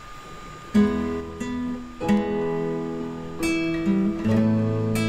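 Background music: acoustic guitar strumming chords, coming in about a second in after a quiet start.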